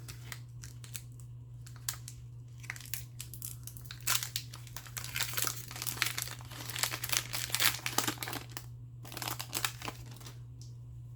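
Plastic wrapper of a trading card pack crinkling and tearing as the pack is opened, in a run of sharp crackles that is busiest in the middle and latter part, over a steady low hum.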